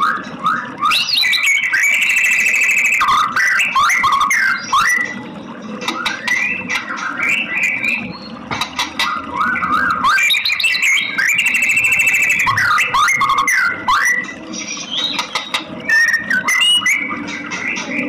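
White-rumped shama singing: loud, varied whistled phrases with sweeping glides and rapid trills, a song sequence that comes round again about every nine seconds.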